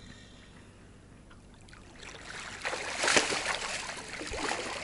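Water splashing and churning around a floating tractor inner tube as it is pulled down into the river, starting about two seconds in and loudest just after the middle.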